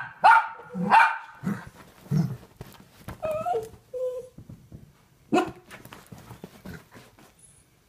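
Dogs barking, with a quick run of loud barks in the first second, some whining a few seconds in, and another bark about five and a half seconds in. The dogs are agitated by fireworks outside.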